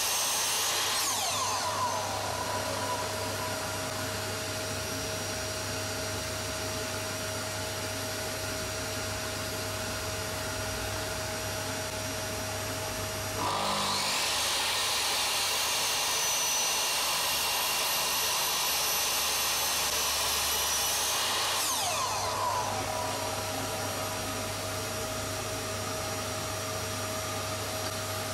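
Makita slide compound miter saw's motor running at full speed, then winding down about a second or two in. It starts again abruptly about halfway through, runs for about eight seconds and winds down again, over a steady hum.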